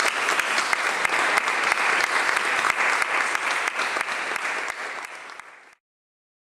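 Audience applauding, a dense patter of clapping that fades and then cuts off abruptly near the end.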